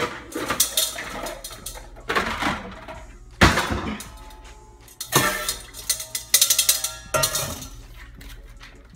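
Stainless steel bowls clanking and ringing as they are handled and set down: a string of uneven metal knocks, the loudest about three and a half seconds in, several of them leaving a short ringing tone.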